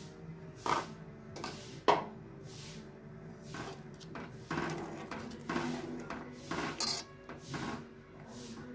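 Steel ladle stirring sugar into rice kheer in a stainless steel pot, scraping and rubbing against the pot's sides and bottom in a run of strokes. Two sharp knocks of the ladle on the metal come about one and two seconds in.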